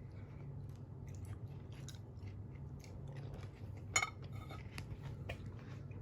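Faint, irregular small clicks and crunches over a low steady hum, with one sharper click about four seconds in.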